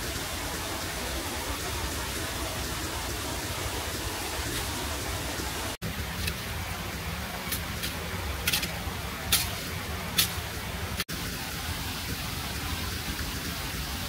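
Heavy rain falling steadily, with a few sharp clicks in the second half and two brief dropouts where the sound cuts.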